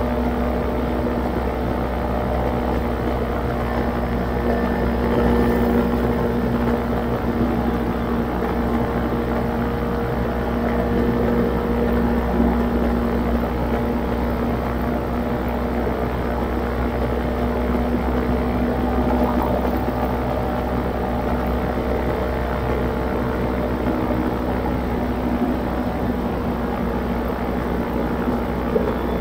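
A motor running steadily at an even pitch, with a low rumble underneath.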